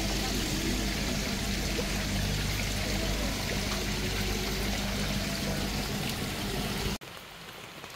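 Water pouring and running steadily into a koi pond, with a low steady hum underneath; it cuts off abruptly about seven seconds in, leaving a much quieter background.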